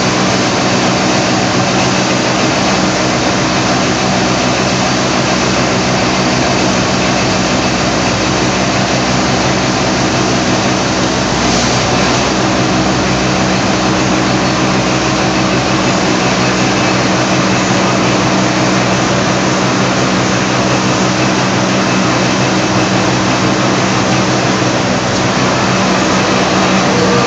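Heecon transporter machine running steadily while conveying used rockwool substrate slabs out of the greenhouse gutters into a container: a constant mechanical hum with a brief louder rush about halfway through.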